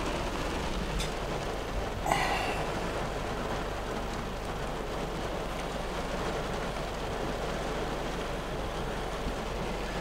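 Steady rain drumming on the Toyota Tundra's roof and windshield, heard from inside the cab. A brief tick comes about a second in and another short sound just after two seconds.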